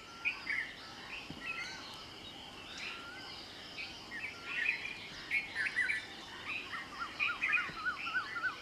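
Several birds chirping and singing, short scattered chirps throughout, with a quick run of rising-and-falling whistled notes near the end.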